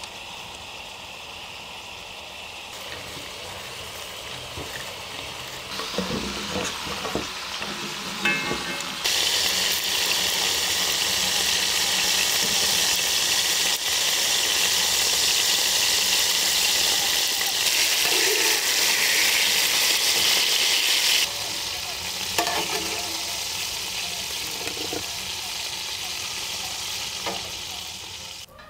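Beef liver sizzling as it fries in hot fat. The sizzle is much louder for about twelve seconds in the middle, and there is some clatter and scraping of stirring early and late.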